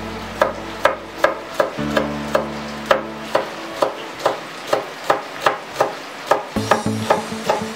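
Chef's knife chopping green onion on a wooden cutting board: sharp, even knocks about two to three a second, over background music with sustained notes.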